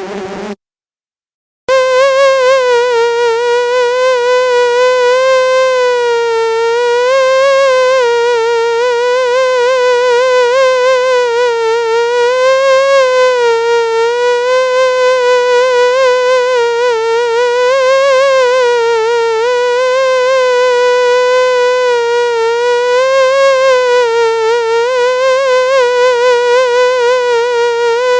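Mosquito whine: one high, buzzing wingbeat tone with many overtones, its pitch wavering slightly up and down. It starts about two seconds in after a brief silence and holds steady throughout.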